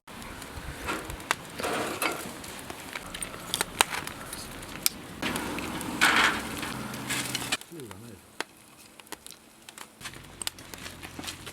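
Wood campfire crackling with scattered sharp pops, under a hissing that swells twice, around 1–2 s in and again from about 5 to 7.5 s, then falls away.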